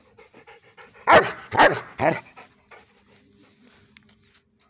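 Rottweiler panting, with three loud, rough huffs about half a second apart a second or so in and quieter quick breaths around them.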